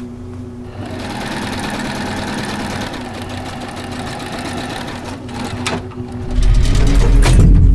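Industrial sewing machine running at speed, a fast dense rattle of needle stitching through a shoe piece. From about six seconds in, a much louder deep low rumble builds underneath.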